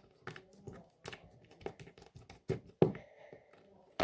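Hands handling homemade slime: irregular small clicks and soft squishes, with the loudest near three seconds in.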